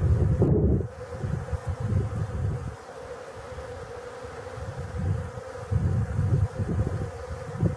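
Many honey bees buzzing steadily around a watering dish. Low gusts of wind rumble on the microphone, strong at the start, dying away after about a second and coming back after about five seconds.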